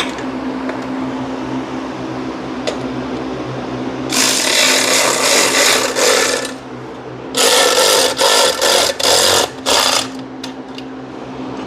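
Electric ratchet running an exhaust bolt down. It starts as a steady motor whine, then becomes much louder and harsher in two stretches, about four seconds in and again near eight seconds. The second stretch comes in short blips as the bolt is snugged down.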